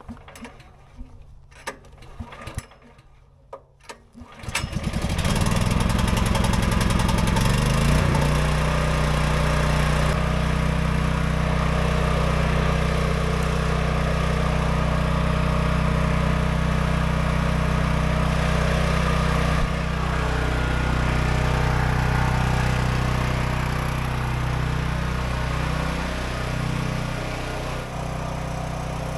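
Champion 7000-watt dual-fuel open-frame generator being pull-started with the choke on: a couple of recoil pulls, then the engine catches about four and a half seconds in, picks up speed and settles into a steady run.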